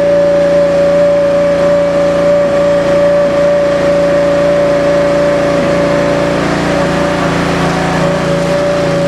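Tire baler's 16-hp V-twin Briggs & Stratton gas engine running steadily, driving the hydraulic pump, with a steady high whine that fades out about six and a half seconds in and returns about a second and a half later.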